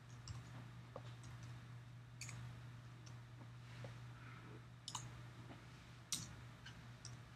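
Faint computer keyboard keystrokes and mouse clicks, a few scattered clicks with the sharpest ones about two, five and six seconds in, over a steady low electrical hum.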